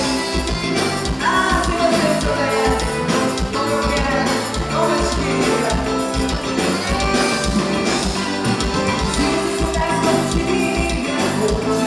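Traditional forró music from a band, with a steady drum beat under a melody line.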